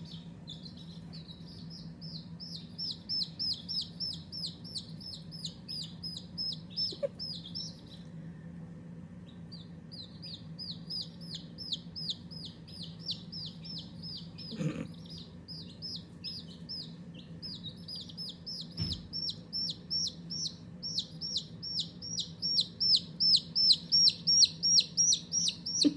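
Baby chick peeping rapidly and repeatedly, about four high, downward-sliding peeps a second. It pauses briefly partway through and grows louder near the end.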